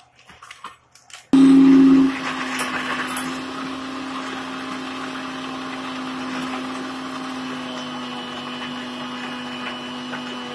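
Electric mixer grinder switched on about a second in, grinding chocolate-chip biscuits into crumbs in its steel jar. Loudest in its first moment, then a steady motor whir.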